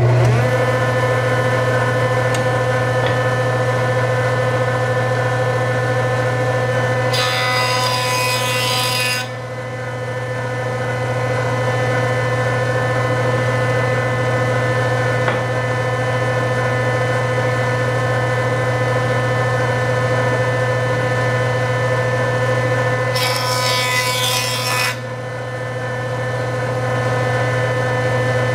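Jointer running with a steady motor hum. Twice, about 7 s and about 23 s in, the edge of a glued-up cutting-board blank is fed across the spinning cutterhead, a loud harsh cutting noise lasting about two seconds each time, with the hum dipping briefly just after each pass.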